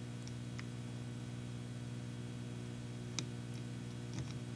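Steady low electrical hum with a few faint ticks, the clearest about three seconds in.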